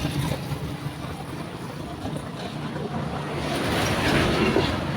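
A Rusi motorcycle being kick-started, the engine cranking over with a rough, uneven mechanical noise that grows louder in the second half; the kicking is being done to check whether the stator is sending current to the regulator.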